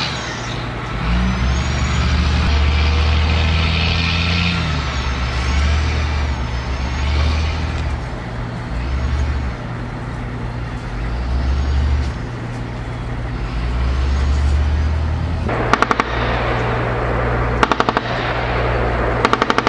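Armoured military truck's engine running steadily as it drives, then three short bursts of machine-gun fire in the last few seconds.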